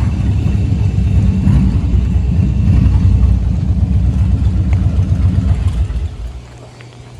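Motorcycle engine running loudly with a pulsing low rumble, dropping off sharply about six seconds in to a quieter, steady low hum.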